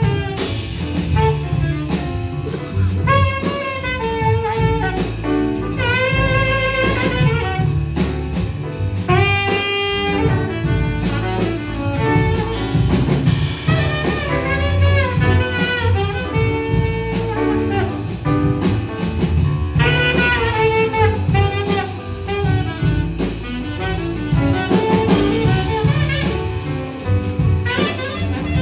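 Live jazz: an alto saxophone solo in separate phrases with wavering vibrato notes, backed by double bass and drum kit.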